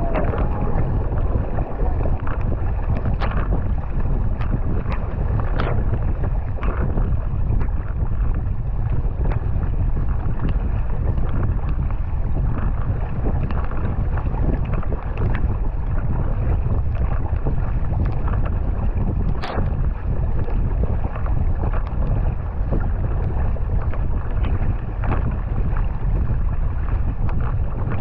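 A racing kayak under way, heard from a deck-mounted camera: a steady low rumble of wind and rushing water on the microphone, with the paddle blades splashing into the water about once a second as the paddler strokes hard. A sharper click comes about two-thirds of the way through.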